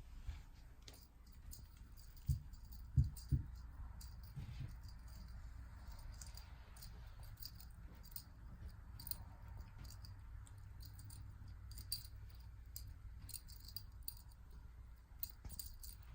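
RagaMuffin kitten at play: a few soft thumps about two to three seconds in, then scattered light clicks and rattling as it bats and carries a small toy.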